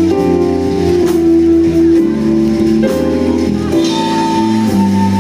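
Live jazz band playing a baião, with electric bass, keyboard and drums; sustained chords change about once a second, and a held higher note comes in near the end.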